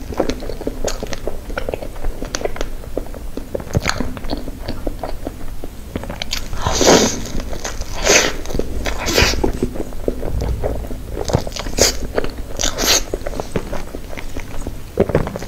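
Close-miked eating of a strawberry mille-crêpe cake with cream: soft chewing and many small wet mouth clicks, with several louder, longer wet sounds in the middle.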